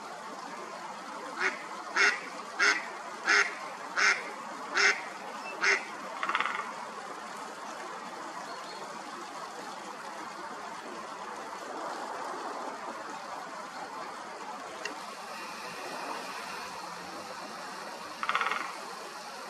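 Mallard hen quacking: a run of seven loud quacks spaced a little over half a second apart, starting about a second and a half in, then a softer one, and a single further quack near the end. A steady outdoor hiss lies under the calls.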